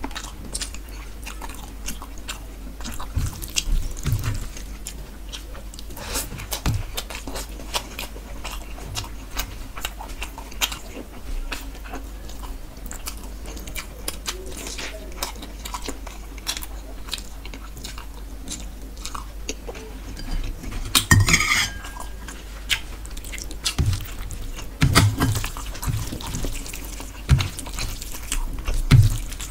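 Close-miked chewing and biting of a mouthful of rohu fish curry and rice, eaten by hand, with many short wet clicks; a louder cluster of mouth sounds about 21 seconds in.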